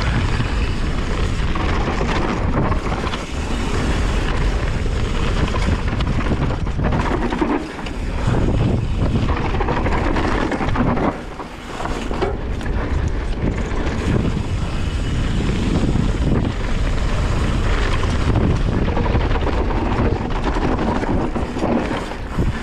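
Wind buffeting the microphone and the tyres of a Yeti SB150 enduro mountain bike rolling fast over a dry dirt trail, with frequent small knocks and rattles from the bike over bumps.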